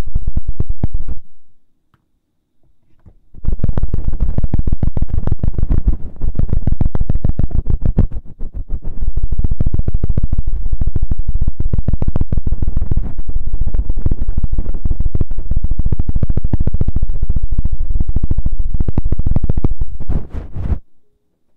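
Close-miked rubbing and scratching on an ASMR microphone: rapid, rough friction, dense and rumbling, pausing about a second in and starting again about three seconds in.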